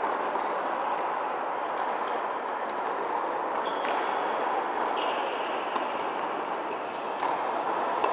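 Tennis rally on an indoor hard court: a few sharp strikes of racket on ball and ball bounces, and short squeaks of shoes on the court, over a steady hiss of hall noise.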